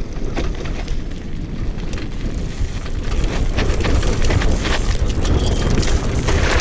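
Fat knobby tyres of an off-road wheelchair rolling down a gravel and dirt track: a steady low rumble full of small clicks and rattles, getting louder about halfway through.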